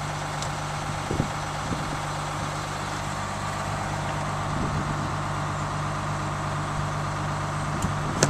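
Crown Coach school bus engine idling with a steady hum, heard at the rear of the bus. A few light knocks come about a second in and again near the end.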